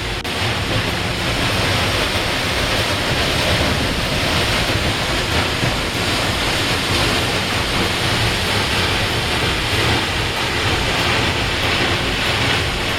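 Steady, loud rush of falling water from Peričnik waterfall, heard up close.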